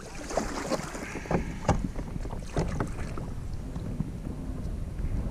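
Kayak paddle strokes: the blade splashing in the water and knocking a few times against the hull. From about two seconds in, wind buffets the microphone with a steady low rumble.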